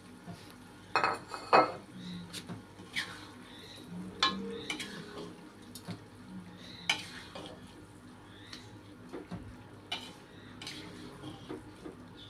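A cooking utensil stirring food in a pan, scraping and knocking against it in irregular strokes, with the loudest clacks about a second in.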